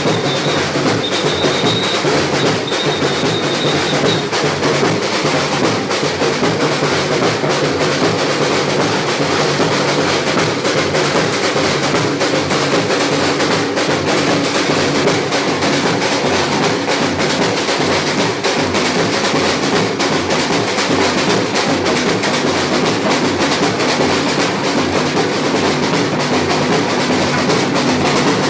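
Batucada samba percussion ensemble playing a steady, dense drum groove without a break. A high steady tone sounds over the drums for the first few seconds.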